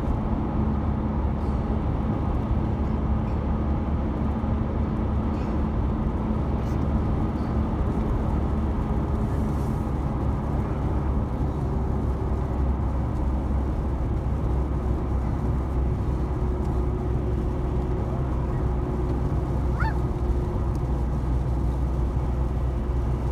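Steady road and engine rumble inside a moving car's cabin, heard without a break.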